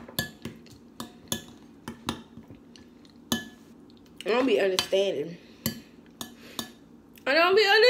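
A metal spoon clinks and scrapes against a glass bowl as thick oatmeal is stirred, about two or three sharp taps a second. A woman's voice sounds briefly about four seconds in and again near the end.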